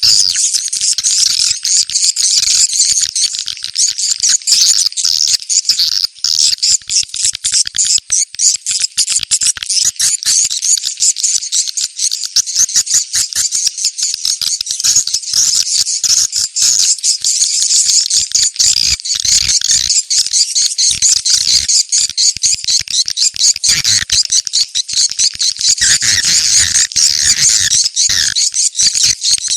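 Recorded swiftlet calls: a dense, continuous stream of rapid, high twittering chirps. It is a lure call played to draw swiftlets to a site and gather them, used to test a location for a swiftlet house.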